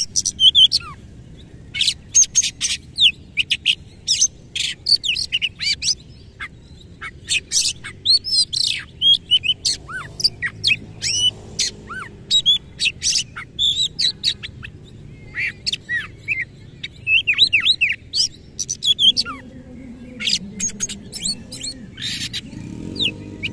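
Oriental magpie-robin singing a fast, varied song of sharp chirps, whistles and harsh clicking notes, its rough mimicked fill-in phrases.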